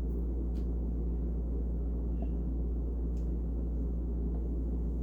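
Steady low background hum and rumble with no speech, broken only by two faint clicks, about half a second in and about three seconds in.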